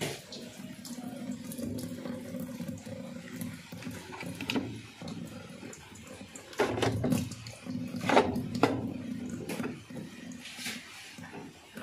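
Water trickling and splashing from the inlet of an LG top-load washing machine into its drum, still flowing in although the machine is switched off. A few louder knocks come about halfway through.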